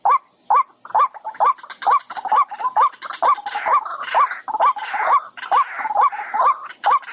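A bird calling loudly and repeatedly, short hooked notes about two or three a second, with harsher rasping calls mixed in over the second half.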